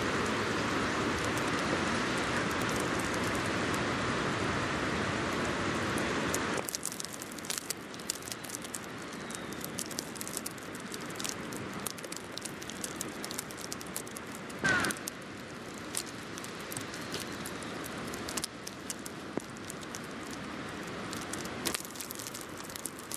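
Outdoor snowstorm ambience over a city expressway: a steady rush of wind-blown snow and traffic that drops abruptly about six seconds in to a quieter hiss with many small ticks and crackles, and one brief sharp sound about 15 seconds in.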